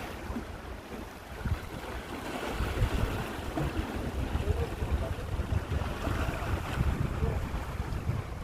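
Sea waves washing and breaking, with wind buffeting the microphone in a low rumble that grows stronger about a third of the way in.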